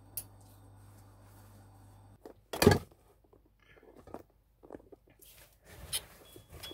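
A low steady hum stops after about two seconds. Then comes one loud thump, followed by scattered soft rustling and handling noises as nylon mosquito netting is moved about.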